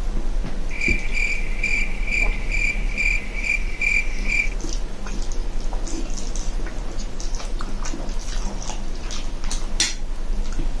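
A high chirp repeating evenly, about two and a half pulses a second, for roughly four seconds and then stopping. Faint clicks and slurps of noodles being eaten with a fork run under it and carry on alone after it stops.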